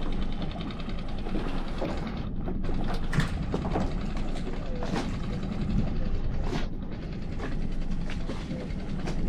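A boat motor running steadily with wind on the microphone, and a few light knocks.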